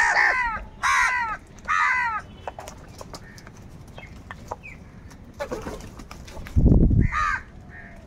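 House crows cawing harshly over food, three loud caws in the first two seconds and another near the end, with light taps between. A brief low thump about six and a half seconds in is the loudest sound.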